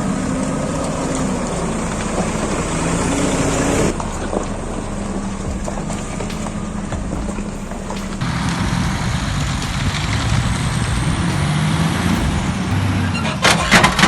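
Heavy logging truck's engine running, its pitch rising and falling, with the sound changing abruptly about four and eight seconds in. A quick run of sharp knocks comes near the end.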